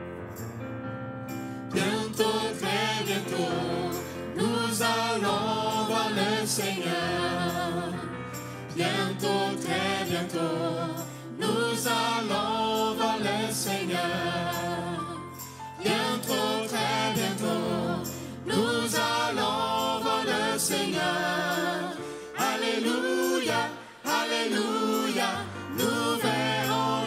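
Gospel hymn with voices singing over piano accompaniment. The voices come in about two seconds in.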